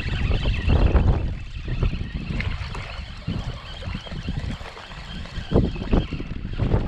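Wind buffeting the microphone in uneven gusts, with a few brief knocks from handling the spinning rod and reel while a fish is reeled in.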